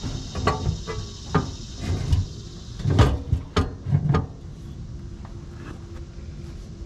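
A run of sharp knocks and clunks, about a dozen in four seconds and loudest near the middle, then they stop and only a faint steady hum is left.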